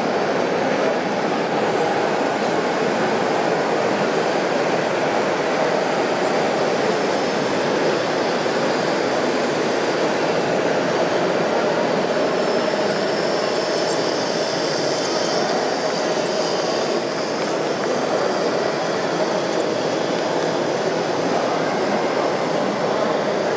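Radio-controlled scale Case IH Quadtrac tracked tractor model running steadily as it pulls a wide cultivator through soil: a constant mechanical drone with a faint high whine from its drive.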